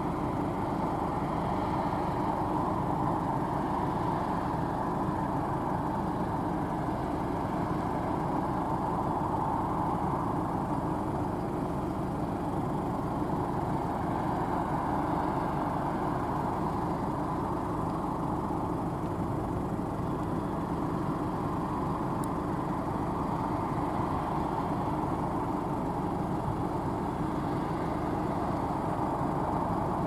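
Claas Lexion 560 combine harvester at work harvesting peas: its engine and threshing machinery run steadily, an even, unbroken noise with no changes in pitch or level.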